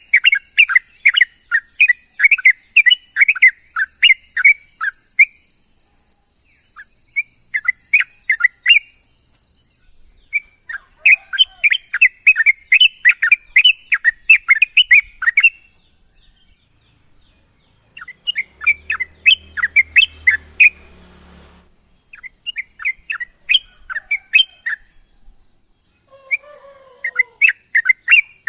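Yellow-vented bulbul (trucuk) calling: bursts of quick, bubbling chattering notes in phrases a few seconds long with short pauses between them, over a steady high hiss.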